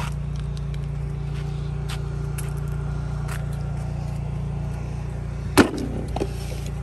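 Steady low mechanical hum with a few light clicks of handling, and one sharp clunk about five and a half seconds in as a mobility scooter's battery is set down on the scooter.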